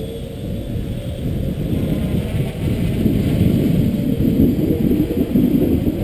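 Strong wind buffeting the microphone, a loud, gusty low rumble that swells and dips. The faint whine of the hexcopter's electric motors and propellers fades out within the first second.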